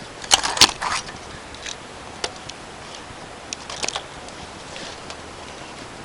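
Metal hand tools and parts being handled, giving a quick cluster of sharp clinks and taps about half a second in, then a few scattered lighter clicks.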